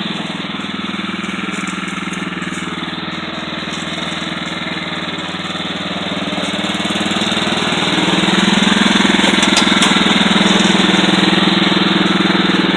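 Poulan riding lawn mower's 14 hp Kohler Command single-cylinder engine running, speeding up about two-thirds of the way through and holding there, louder.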